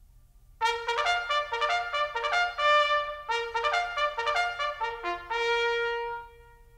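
Background music: a trumpet playing a bright melody in two quick phrases, the second ending on a long held note.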